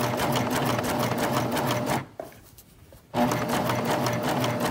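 Coverstitch machine stitching at speed through knit fabric: it stops about two seconds in and starts again about a second later, sewing over the starting stitches to close a round of top-stitching on a neckband.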